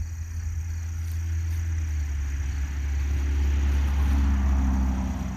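A motor vehicle's steady low rumble, with a hiss that grows louder toward the middle and a few steady tones coming in near the end.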